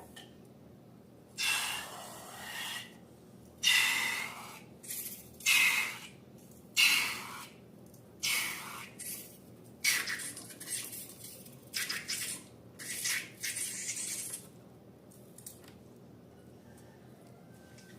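Slime being handled: a run of about a dozen short, noisy squishing and rustling sounds, some nearly a second long. They stop a few seconds before the end.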